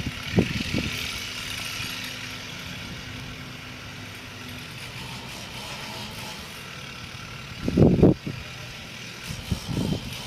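An engine running steadily, with dull low thumps: one about half a second in, a loud double thump near eight seconds in, and a few more near the end.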